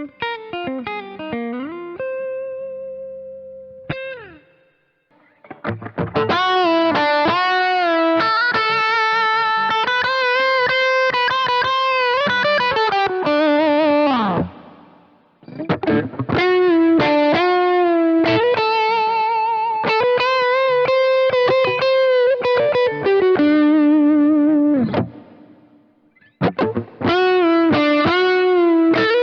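Johnson JH-100 hollow-body electric guitar played through an amp with high-gain distortion on the neck pickup: lead lines with string bends and vibrato on held notes. The lines are broken by short pauses about five and fifteen seconds in and again near the end.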